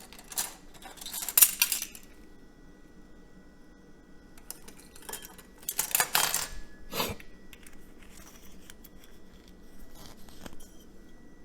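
Kitchen utensils and dishes being handled: a measuring spoon and small containers clinking and scraping in short bursts, with a cluster at the start and another about five to seven seconds in.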